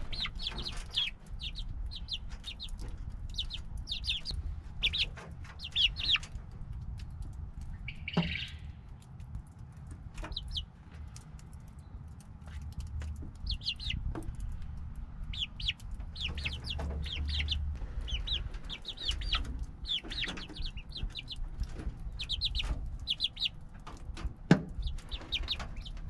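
A small flock of young chickens clucking and peeping close by, short high calls scattered throughout, with a few sharp knocks over a steady low rumble.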